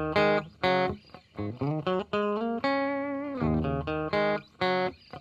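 Instrumental intro music: a melodic lead line of short notes, some bending and sliding in pitch, with one long held note about midway.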